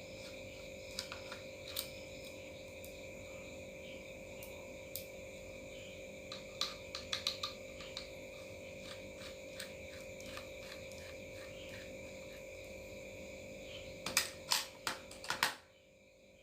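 Small screwdriver clicking and ticking as the tiny screws holding a laptop hard drive's mounting bracket are undone: scattered light clicks, with a quick cluster of sharper ticks near the end, over a faint steady hum.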